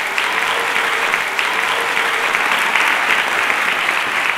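Audience applauding, a loud and steady clapping that swells just before and holds evenly.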